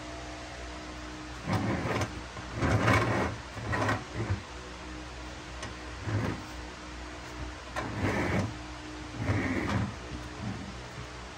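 Six short mechanical bursts, each half a second to a second long, over a steady low hum; the loudest comes about three seconds in.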